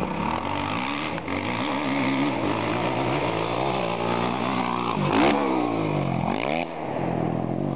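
Motocross dirt bike engine running on the track, its pitch rising and falling with the throttle and gear changes. Two sharp revs come about five and six and a half seconds in, as the bike takes a jump.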